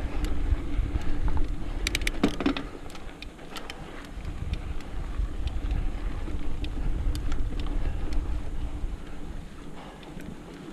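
Mountain bike running down a dirt single-track trail: wind buffeting the microphone and tyres rolling over the dirt, with a cluster of sharp rattling clicks about two seconds in. It gets quieter after about three seconds.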